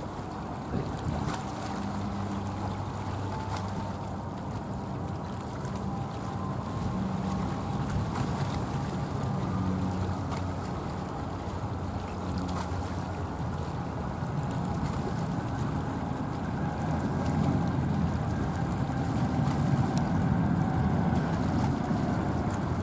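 Jet airliner engines heard at a distance: a steady rumble with a faint engine whine above it, swelling louder in the last few seconds, with wind buffeting the microphone.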